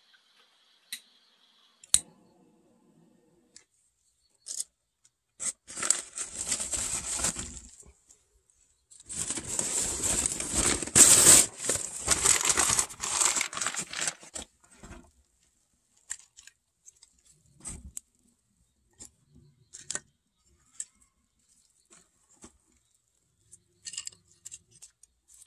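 Crumpled paper kindling in an ondol firebox crackling and rustling in two dense stretches, loudest about eleven seconds in, then scattered sharp pops and ticks.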